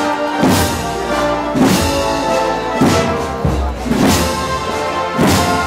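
A live brass band playing a slow processional march, with held horn and woodwind notes over a drum beat that strikes about once every second and a bit.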